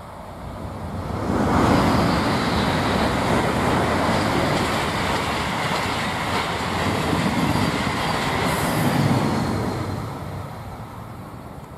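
Two electric trains passing each other at speed on a curved viaduct: a regional train hauled by an E.464 electric locomotive and an Italo high-speed train. The wheel-and-rail rumble and rush of air swell in over the first second or so and hold with a thin high whine, then fade near the end.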